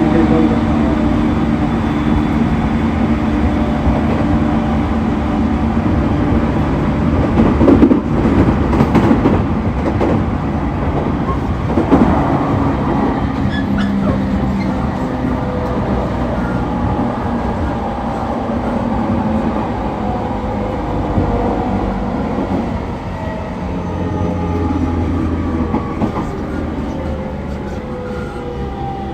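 E231 series 1000-subseries electric commuter train running, with steady motor tones, two loud knocks from the wheels about 8 and 12 seconds in, and several tones falling steadily in pitch over the last third as the train slows.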